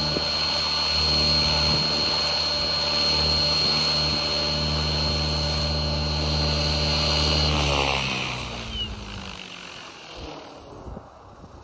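Align T-Rex 600E Pro electric RC helicopter hovering: a steady rotor thrum with a high electric motor whine. About seven and a half seconds in, the motor whine stops and the rotor winds down, its pitch falling as it fades away.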